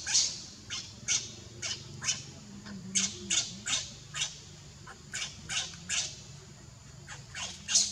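Baby macaque crying for its mother with short, high-pitched squeaks over and over, about two a second. The cries are louder at the start and again near the end, softer in the middle.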